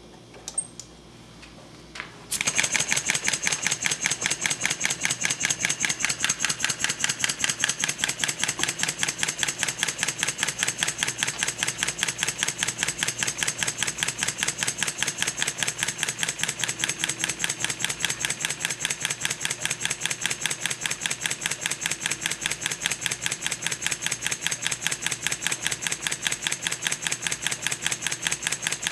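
A couple of light clicks, then a small two-cylinder marine compound model steam engine starts about two seconds in and runs with a rapid, very even beat. It is running in reverse (counterclockwise), set by its Stephenson reversing linkage.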